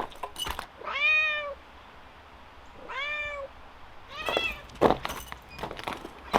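A cat meowing: three separate meows, each rising then falling in pitch, spaced about a second and a half apart, with a few light knocks and rustles between them.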